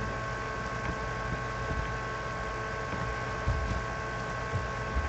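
Steady background hum and hiss with two steady whining tones, and a few soft low thumps about three and a half seconds in and near the end.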